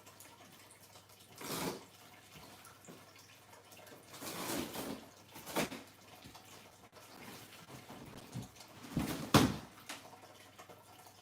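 Water trickling and dripping from a turtle tank, with a few louder swishing swells, the loudest about nine seconds in.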